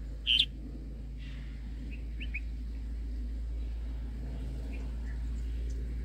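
Red-whiskered bulbuls calling at the nest: one short, sharp call about a third of a second in, followed by a few faint short chirps, over a steady low hum.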